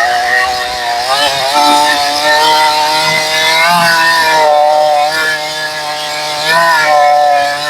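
62cc clone chainsaw with a 20-inch bar running at high revs while cutting through a stringy bark gum log; the engine note sags briefly a couple of times as the chain loads up in the wood.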